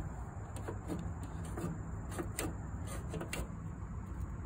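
Faint scattered clicks and light handling noise over a steady low rumble: hands and the phone working around a lawn tractor's metal lever bracket.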